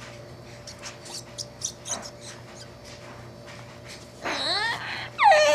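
Rubber squeaky ball squeaking twice near the end, the second squeak louder and falling in pitch, with faint small clicks before.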